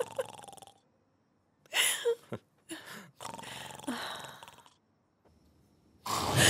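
A man snoring loudly, a string of heavy, rasping snores with short pauses between them and a louder one starting near the end, a sound likened to a dragon's.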